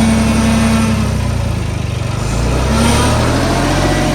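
Tractor diesel engine running steadily while working a backhoe loader attachment, with a brief whine early on and the engine note rising and falling about halfway through.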